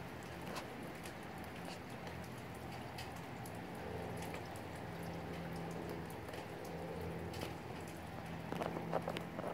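Steady rain with scattered raindrops tapping close by. A cluster of louder taps comes near the end.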